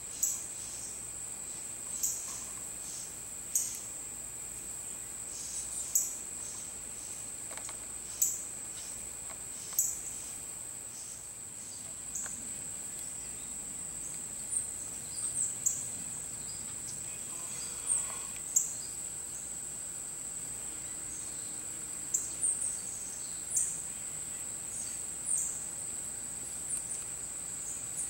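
Insects trilling steadily at a high pitch, with short sharp chirps every second or two. In the second half a few of the chirps are quick calls that glide down in pitch.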